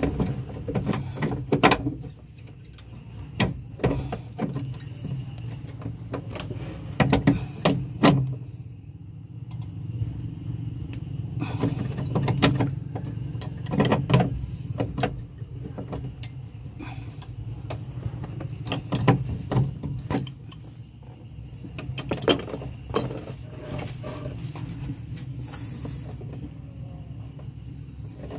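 Hand tools clicking and knocking against metal, in scattered irregular strikes, during work on a van's clutch hydraulics. A steady low hum runs underneath.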